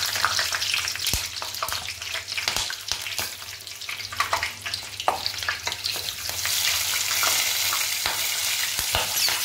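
Whole green chillies deep-frying in hot oil in a kadai: a steady sizzle with many small pops and crackles.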